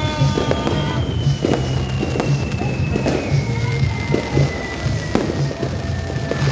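Fireworks going off in a few scattered bangs, with a long slowly falling whistle, over background music with a steady beat.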